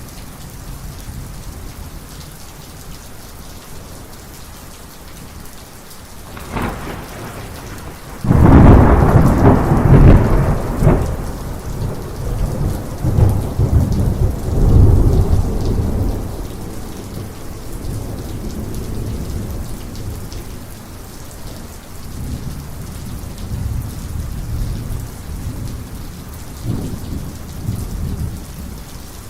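Heavy rain falling steadily while a close thunderclap hits: a short crack about six and a half seconds in, then a sudden loud burst about eight seconds in that rolls on in repeated peals for about eight seconds before fading into lower rumbles.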